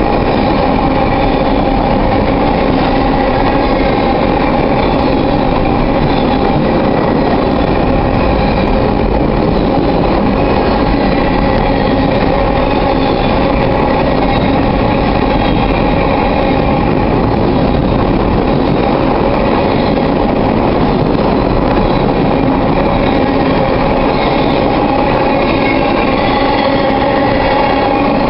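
Covered hopper cars of a freight train rolling past close by: a loud, steady rumble and clatter of steel wheels on the rails that does not let up.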